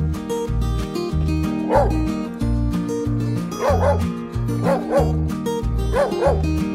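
A dog barking, short sharp barks mostly in quick pairs, starting about two seconds in, over ukulele music with a steady bass line.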